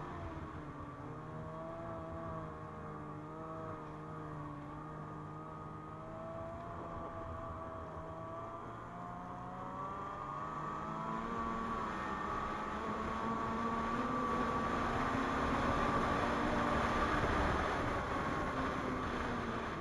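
Ski-Doo MXZ 600 Carb Sport snowmobile's two-stroke twin engine running under way, its pitch wavering with the throttle. About halfway through it rises in pitch and gets louder as the sled speeds up.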